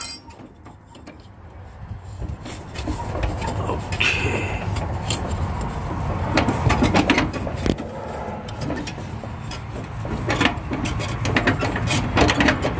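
Hands working a rubber drive belt onto a riding lawn mower's deck pulley: scattered rubbing, scraping and small clicks over a steady low rumble.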